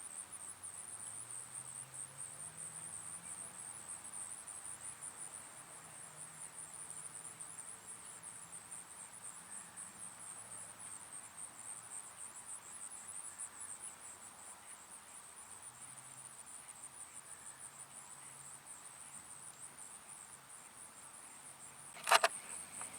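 Faint, steady insect chorus: a high, rapidly pulsing trill that goes on throughout. A single sharp click sounds near the end.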